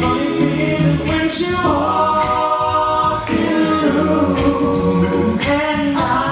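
Male a cappella vocal group of five singing in close harmony into handheld microphones, holding chords that change about every two seconds.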